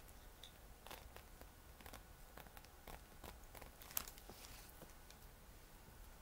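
Near silence with faint rustling and light clicks of objects being handled close by, and one sharper click about four seconds in.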